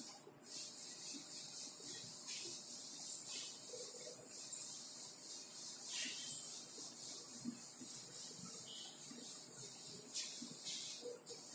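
Blackboard duster wiping a chalkboard clean in quick back-and-forth strokes, a dry rubbing hiss pulsing about three times a second.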